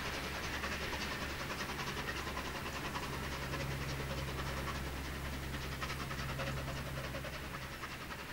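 Steam train receding out of sight, its locomotive's exhaust a rapid, even chuffing that slowly fades.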